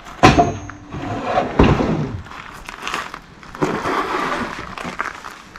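Wooden boards knocking and scraping as 1-inch sheathing boards are lifted onto a scaffold and slid off a stack, with a sharp wooden knock about a quarter second in and another about a second and a half in.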